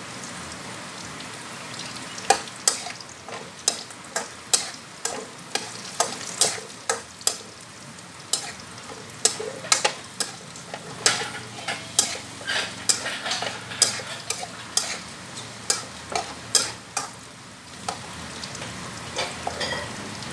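Diced Chinese sausage, fish balls and green beans sizzling in a steel wok while a spatula stir-fries them, with sharp clacks and scrapes of the spatula against the wok at about two a second. The clacks pause briefly near the end while the sizzle goes on.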